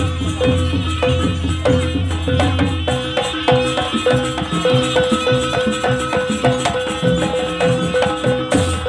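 Jaranan dance accompaniment from a live gamelan-style ensemble: drums, a gong-chime striking the same note on a steady beat, rattling percussion and a high melody line.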